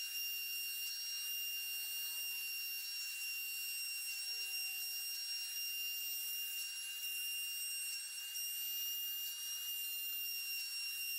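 Home-made CNC spindle, a 540 RC buggy motor with an ER11 collet chuck, running at speed while the machine drills holes in a copper PCB blank: a steady high-pitched whine made of several fixed tones.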